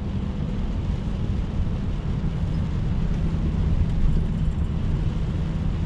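Truck's diesel engine and road noise while driving: a steady low drone with a constant hum.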